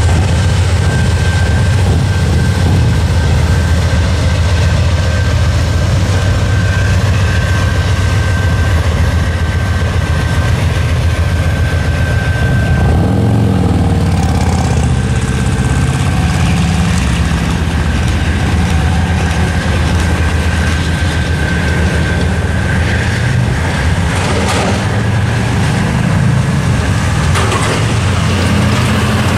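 Rear GE AC44C6M pusher locomotive of a freight train running past and away under a constant low rumble, while the crossing's electronic bells ring. The bells fade out about three-quarters of the way through as the gates go up, and cars and a pickup truck drive across.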